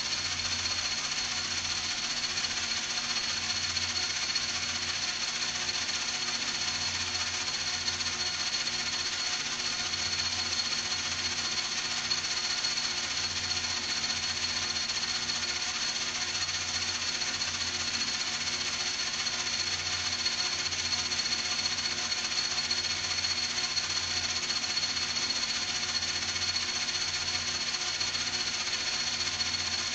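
Machine tool running steadily, with a constant high whine over a low hum, while the adapter part for the motor swap is being worked.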